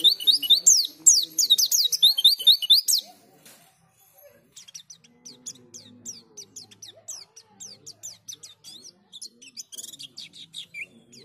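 White-eye (pleci) singing a loud, fast run of high, sharp chirps for about three seconds. After a short pause, softer chirping resumes and keeps going.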